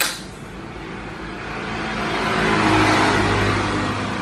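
A sharp click, then a motor vehicle's engine passing outside, swelling to its loudest about three seconds in.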